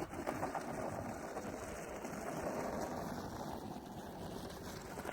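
A steady rushing noise, like wind on the microphone, without any motor tone.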